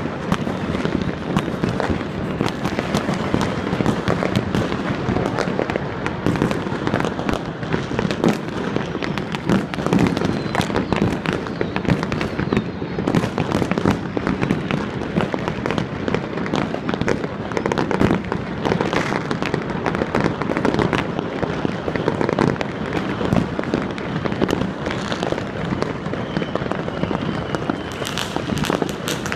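Many fireworks and firecrackers going off across the city at once: a continuous barrage of overlapping bangs and crackles, dense and unbroken.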